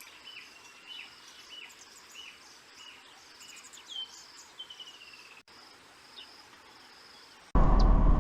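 European bee-eater calling: short rolling chirps, each falling slightly in pitch, repeated every half second or so over a steady high insect buzz. About seven and a half seconds in, this cuts off abruptly to a loud low rumble.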